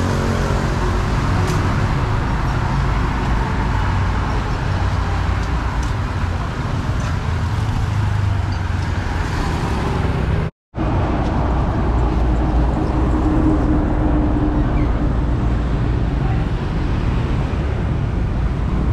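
Steady street traffic noise: a dense mix of vehicle engines and road noise, broken by a momentary dropout about ten and a half seconds in.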